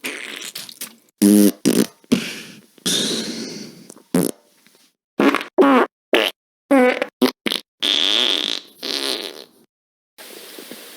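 A rapid string of fart sound effects: about fifteen short blasts with dead silence between, some with a pitched rasp and some more of a hiss. About a second before the end a steady rushing noise starts.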